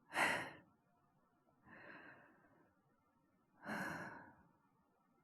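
A man breathing close to the microphone: three breaths, the first and the last louder, the middle one faint.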